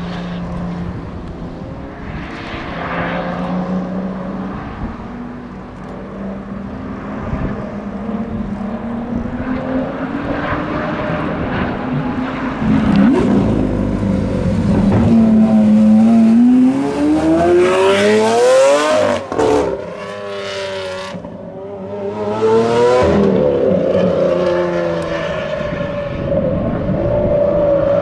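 Supercar V12 engines at speed: a Pagani Huayra passing on track, then a Lamborghini Aventador accelerating hard, its note rising steeply to a peak about two thirds of the way through before cutting off abruptly. Further revving and acceleration follow near the end.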